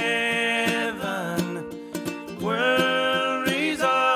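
Background music: a light acoustic song with strummed or plucked strings under long held melody notes that glide into each other.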